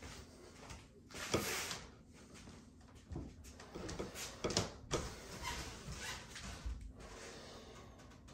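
Pool balls on a pool table: a sharp click about a second in with a short rolling rush after it, then several more clicks a couple of seconds later.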